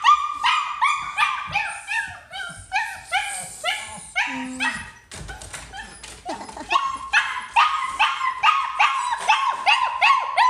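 German Shepherd puppy whining and yipping in quick, repeated high-pitched cries, several a second, with a short pause about halfway through. It is the anxious crying of a puppy newly parted from its mother.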